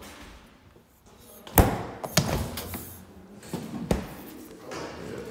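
Refrigerator doors being shut: a loud thud about a second and a half in, a lighter knock half a second later, and another thud about four seconds in.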